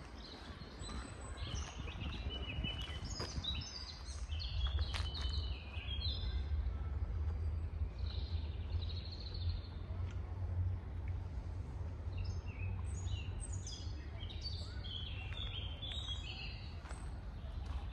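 Small songbirds chirping and trilling in two spells of busy, quick notes, over a steady low rumble.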